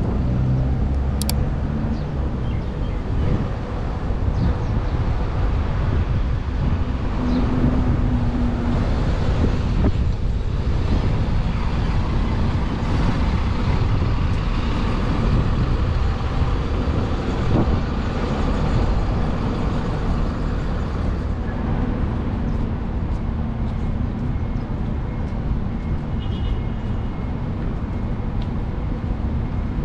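Steady city street traffic: car engines and tyre noise with a continuous low rumble.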